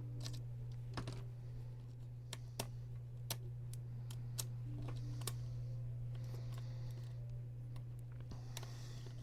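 Small irregular clicks and taps of tweezers on a laptop's small plastic and metal parts as the Wi-Fi antenna leads are worked loose, over a steady low hum.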